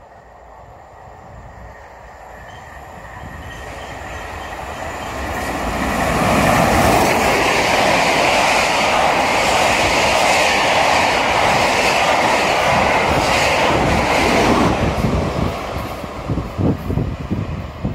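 Passenger train of maroon coaches running through a station at speed: a rising rush as it approaches over the first six seconds, then steady loud wheel-on-rail noise as the coaches pass, easing off about three-quarters of the way through. Near the end, gusts of wind on the microphone.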